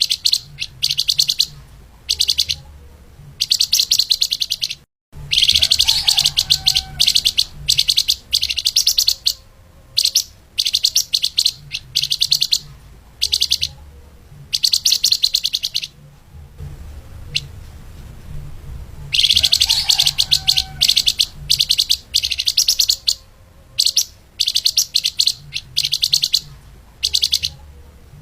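Fast, tightly packed song of a flamboyan (lemahan) songbird: short, rapid, high trills repeating about once a second, with two longer bursts of song.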